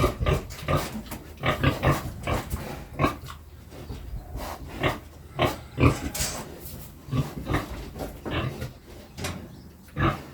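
Pig grunting, a run of short grunts at irregular intervals.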